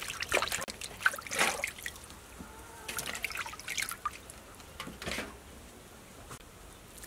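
Water splashing and dripping as round green eggplants are rubbed and lifted by hand in a metal basin of water, in irregular splashes that thin out towards the end.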